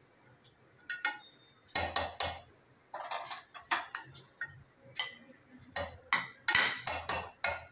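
Metal spoon scraping and clanking against the side of an aluminium cooking pot while mixing a pot of rice biryani. The strokes start about a second in and come irregularly, closer together near the end.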